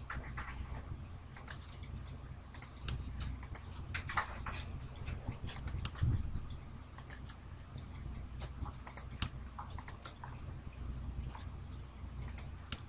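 Irregular, fairly quiet clicking at a computer, from mouse buttons and keys, over a faint steady low hum.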